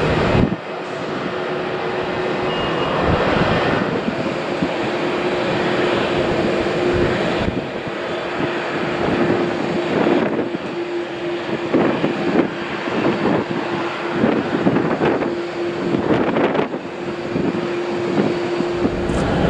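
Boeing 787-8's GEnx-1B turbofan engines running as the airliner rolls out along the runway after touchdown: a steady broad jet rush with a steady hum tone running through it.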